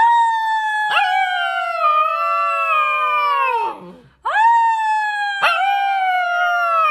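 A black-and-white husky-type puppy howling: two long howls, each rising sharply at the start and then sliding slowly down in pitch before trailing off.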